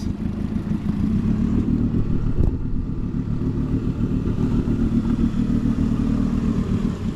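Outboard motor on a small dinghy running steadily under way, trimmed up for shallow water. There is a single brief knock about two and a half seconds in.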